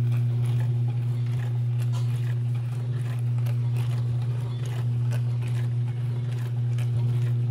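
IAGREEA portable countertop dishwasher running, its pump motor giving a steady low hum with faint irregular clicks and patter on top.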